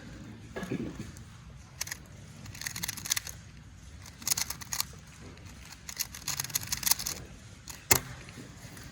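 Plastic 2x2 speedcube being turned fast, in three bursts of rapid clicking, with a single sharp knock near the end.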